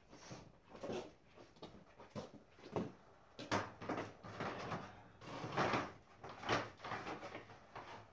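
Irregular knocks, clunks and scrapes as a vehicle grille is handled and set on a stepladder, mixed with footsteps; two sharp knocks, about three and a half and six and a half seconds in, are the loudest.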